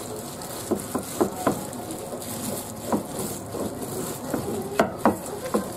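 Wooden rolling pin rolling out butter-roll dough over plastic wrap on a plastic cutting board: a steady rustle of dough and wrap, with irregular light knocks of the pin against the board, the sharpest near the end.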